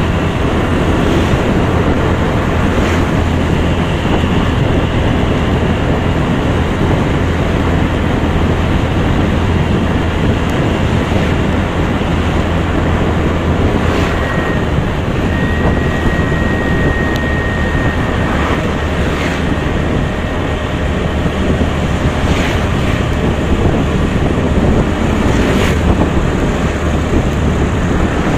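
Steady wind rushing over the microphone of a riding motorcycle, with road and traffic noise underneath.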